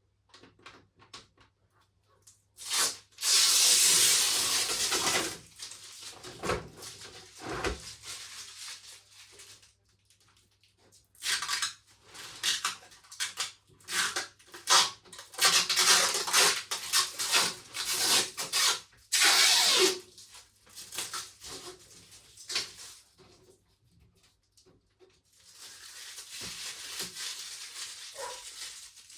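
Plastic protective packaging being peeled off and crinkled while unboxing a tumble dryer: several stretches of rustling and crackling with scattered clicks and knocks of handling between them.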